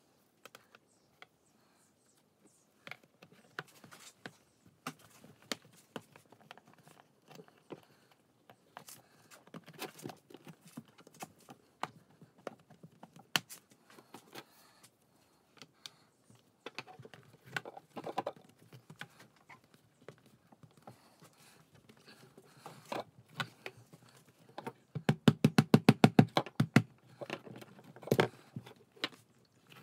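Plastic glazing beads being handled and fitted into a double-glazed window frame: scattered clicks and light taps, a quick run of rapid taps about 25 seconds in, and a few heavier knocks near the end.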